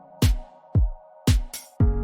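Electronic dance music with a regular kick-drum beat and sharp percussion hits; the beat thins out, then the full mix comes back near the end.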